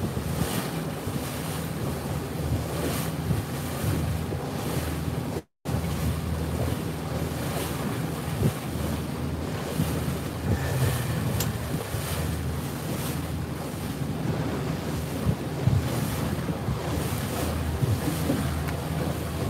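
Wind buffeting the microphone over the steady low hum of a small boat's motor, with rushing water around the hull. The sound cuts out for an instant about five and a half seconds in.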